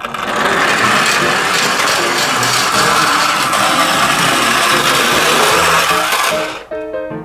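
Plastic wheels of toy cars rolling down a long cardboard ramp: a loud, steady rolling noise that dies away about six and a half seconds in. Background music plays underneath.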